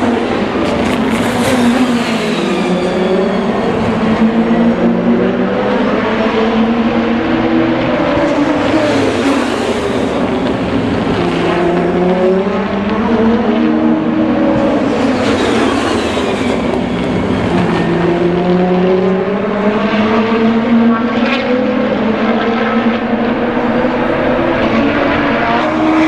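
DTM touring cars' 2.0-litre turbocharged four-cylinder engines racing past, the engine pitch climbing and dropping again and again as they accelerate and slow, often more than one car at a time.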